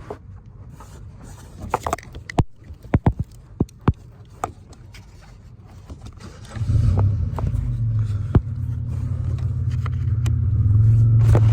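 Scattered clicks and knocks of cable leads and clips being handled. About six and a half seconds in, a motor starts up with a steady low drone that grows a little louder near the end.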